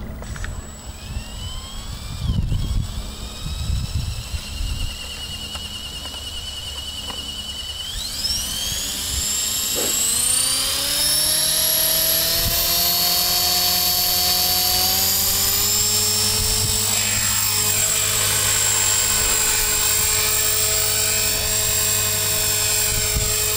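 Electric KDS 450 Pro flybarless RC helicopter spooling up: the brushless motor and rotor whine rises slowly, climbs steeply about eight seconds in, then holds a steady high whine at flying speed.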